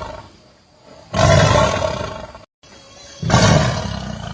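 A big cat roaring: two loud roars about two seconds apart, each fading away.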